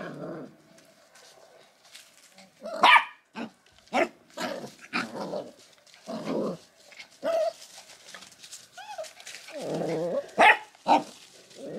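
Puppies play-fighting, with a quick, uneven string of high-pitched yips and short barks.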